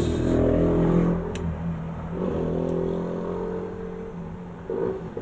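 A steady, engine-like drone with a slight shift in pitch about two seconds in, and a single sharp click a little over a second in.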